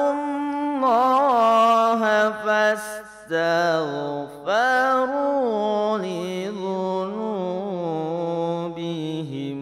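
A solo voice reciting the Quran in Arabic in the slow, melismatic tilawah style, holding long ornamented notes that glide up and down. It breaks briefly for breath about three seconds in and again about a second later.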